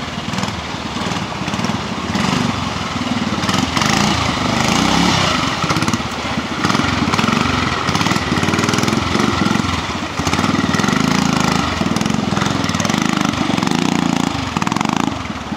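Classic pre-65 trials motorcycle engine running and blipped on and off the throttle as it climbs a rocky stream section, the revs rising and falling every second or so, with water rushing over the rocks.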